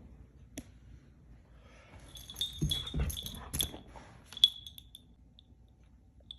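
Metallic jingling and clinking with a few dull knocks, made by a dog moving about. It starts about two seconds in and lasts about two and a half seconds, with a sharp clink near the end of it.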